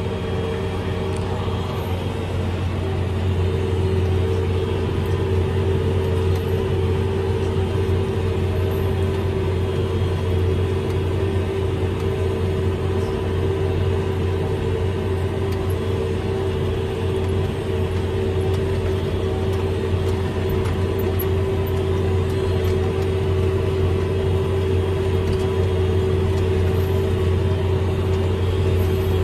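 Farm tractor pulling a planter through a field, heard from inside the cab: a steady engine drone with a steady whine over it, a little louder from about four seconds in.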